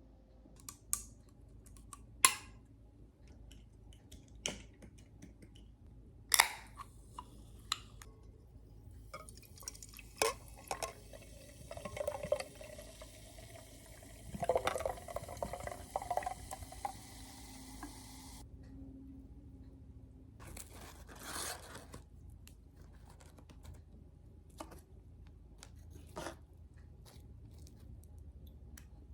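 Liquid being poured into a glass, its pitch rising as the glass fills, over a hissing noise that cuts off suddenly. Scattered sharp clicks and knocks come before and after it.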